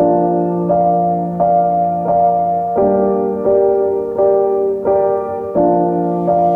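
Background piano music: gentle notes struck at an even pace, roughly one every 0.7 seconds.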